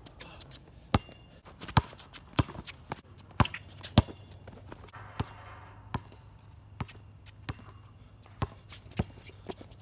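A basketball being dribbled on an outdoor hard court: about ten sharp bounces at an uneven pace, with footsteps on the court between them.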